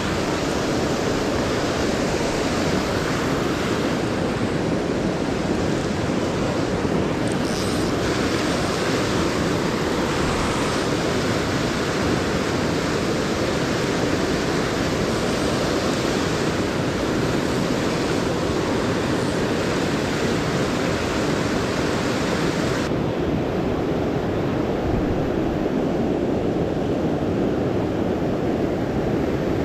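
Fast-flowing mountain river rushing over boulders and through rapids: a steady, dense rush of white water. The higher hiss thins out about three-quarters of the way through, leaving the lower rush.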